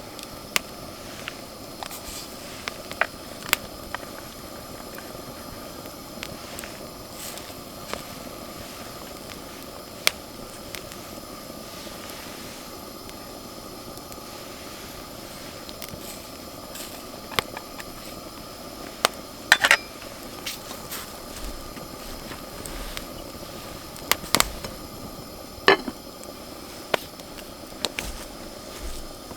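Wood campfire crackling: scattered sharp pops and snaps over a steady hiss, with a few louder cracks in the second half.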